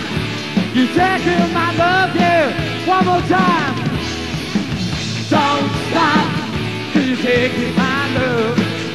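Live rock band playing a song, with a singer's voice over the band in two sung phrases.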